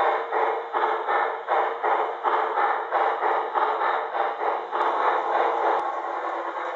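Model of the Norfolk and Western Class A 2-6-6-4 steam locomotive running on its layout, its sound system playing rhythmic steam chuffs, about three to four a second. About five seconds in, the chuffing gives way to a steady rolling rumble.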